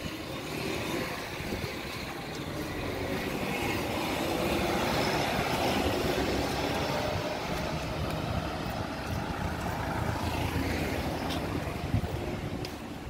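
Street traffic: a vehicle passing on the road, its engine and tyre noise swelling over several seconds and then fading. A single sharp tap near the end.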